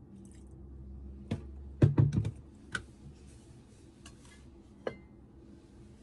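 A run of sharp clicks and light taps, bunched in a quick cluster about two seconds in and then spaced out, with a short high tone just after the last click.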